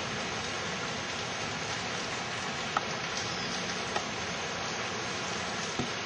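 Steady, even rushing noise with three faint ticks spread through it.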